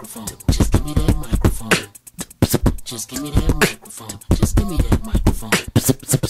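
A cappella human beatboxing: rapid mouth-made drum hits, with sharp snare-like clicks and low kick thumps, mixed with short hummed vocal tones. There is a brief pause about two seconds in.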